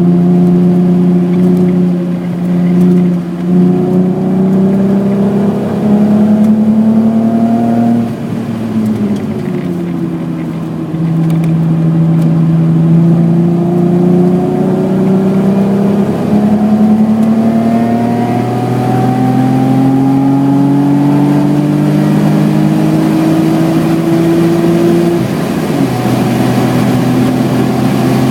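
A 1986 BMW E28's 3.6-litre straight-six engine pulling hard on track, its pitch climbing steadily as the revs rise. The revs drop sharply about eight seconds in and again near the end, then climb again.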